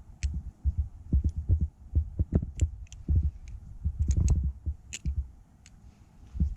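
Balisong (butterfly knife) trainer being flipped: quick, irregular clicks and taps as the handles swing round and meet, over dull low thumps of handling. There is some tap left in the pivots after tuning.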